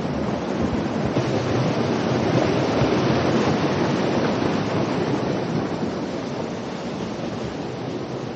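Water rushing steadily over a small creek waterfall and rapid. The rush swells a little a few seconds in and eases slightly toward the end.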